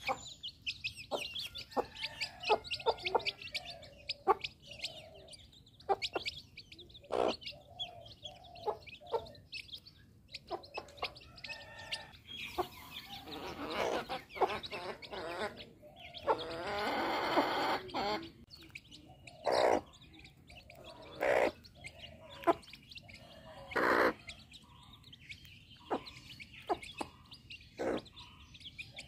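Chicks peeping and a mother hen clucking as they feed, with short, sharp taps scattered throughout. A longer, louder stretch of calling comes about sixteen to eighteen seconds in.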